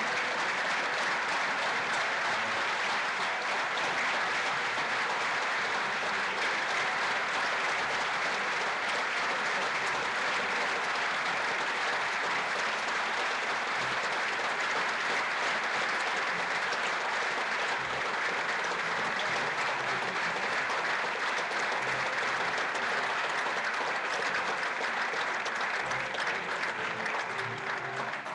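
Audience applauding: dense, steady clapping that begins to die away near the end.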